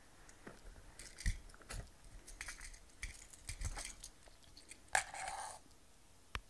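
Handling noise as a DB9 serial connector is pulled out of its adapter and the cable moved aside: a string of irregular clicks and short scrapes, with two sharper clicks about a second in and about five seconds in.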